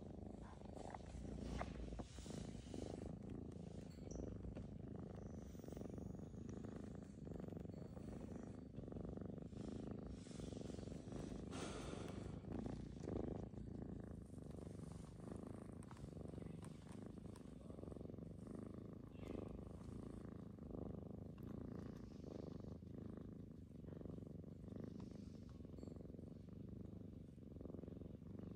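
Domestic cat purring in its sleep: a steady, low, engine-like rumble.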